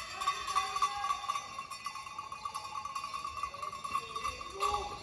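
Handball game in a sports hall: short knocks of ball bounces and footsteps on the hall floor with brief shoe squeaks, over a steady high ringing tone.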